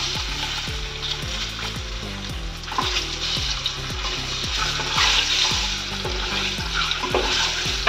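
Hard-boiled eggs sizzling steadily in hot oil in a wok, with a few scrapes of a metal spatula as they are turned. A steady low beat of background music runs underneath.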